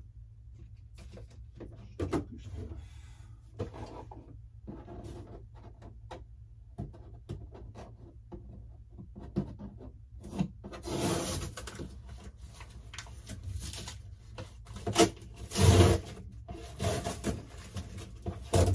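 Someone rummaging through a cardboard box: packaging rustling and scraping, with irregular knocks and bumps. The handling gets busier and louder in the second half, and the loudest bumps come near the end.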